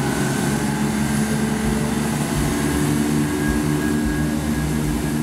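Class 170 Turbostar diesel multiple unit's underfloor diesel engines running under power as the train slowly accelerates, a steady drone with several low tones.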